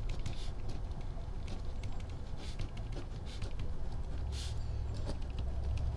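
Pen writing on grid paper: irregular short scratchy strokes as words are written out by hand, over a low steady hum.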